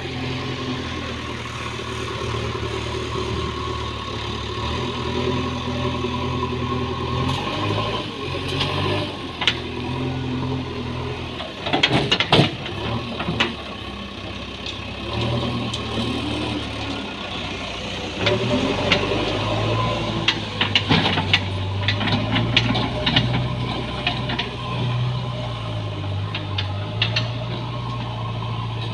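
JCB backhoe loader's diesel engine running, its pitch stepping up and down as the machine works, with sharp metallic knocks and clanks, a cluster about twelve seconds in and more scattered through the second half.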